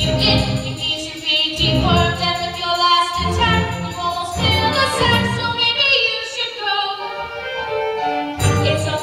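A group of voices singing a musical-theatre number together over an instrumental accompaniment.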